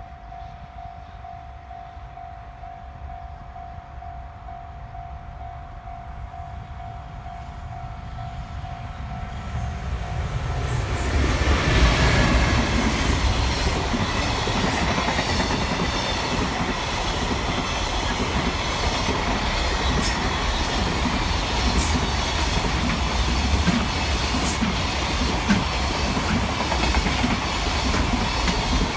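Freight train hauled by an EF510 electric locomotive passing at speed: the rumble grows over the first ten seconds, is loudest about twelve seconds in, then the wagons run by steadily with sharp wheel clicks over the rail joints. A faint steady tone sounds before the train arrives.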